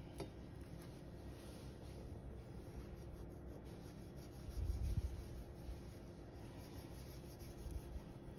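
Kitchen knife drawing a long score through a mackerel's skin on a bamboo cutting board: faint scraping, with a soft low bump about five seconds in.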